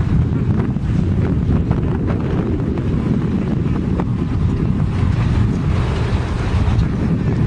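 Wind buffeting the microphone aboard a boat at sea: a steady, loud low rumble with a few faint clicks.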